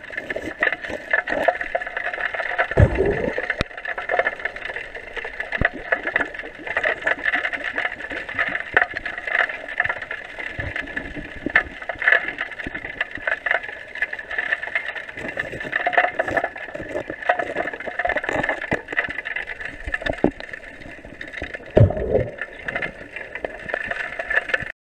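River water heard through a submerged camera: a steady rushing hiss with frequent small clicks and knocks, and dull thumps about three seconds in and again near the end. It cuts off suddenly at the end.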